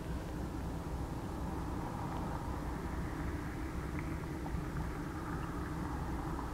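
Steady low rumble of a distant diesel freight train approaching, led by a GE ES44DC locomotive.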